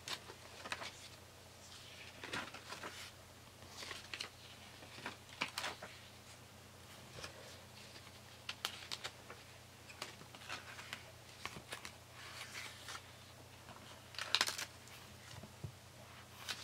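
Paper pages of a spiral-bound journal turned and smoothed flat by hand: a string of irregular soft paper rustles and swishes, the loudest about fourteen seconds in.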